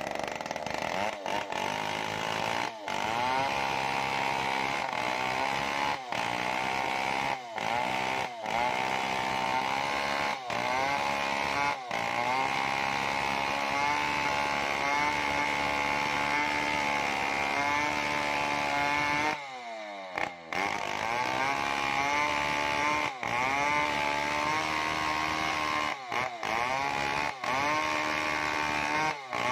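New West 070 two-stroke chainsaw with a 36-inch Stihl bar, running under full load as it rips a coconut log lengthwise. The engine note dips briefly every second or two. About two-thirds through it falls away for about a second and climbs back up.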